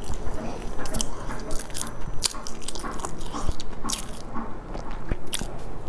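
Close-miked mouth sounds of eating a soft filled bread bun: biting and chewing with wet, irregular smacks and clicks, several a second.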